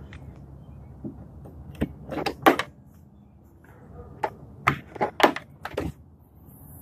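Flush-mount hood latches on a sports car's hood being pressed and released, one side after the other: two clusters of sharp clicks and clacks, the first about two seconds in and the second from about four and a half seconds in.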